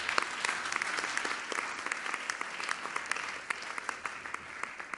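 Audience applauding: many hands clapping together, tapering off near the end.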